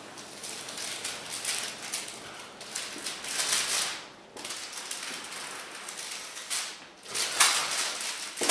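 Clear plastic backing film being peeled off a self-adhesive peel-and-stick backdrop: the plastic rustles and crinkles in uneven spells, loudest about three and a half seconds in and again near the end.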